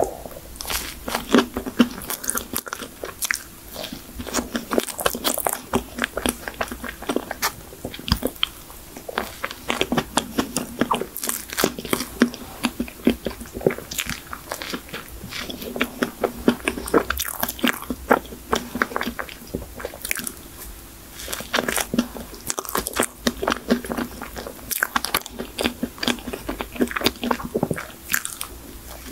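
Close-miked biting and chewing of a blueberry cream folding cake, with irregular crunches from its baked shell and a steady patter of small mouth clicks.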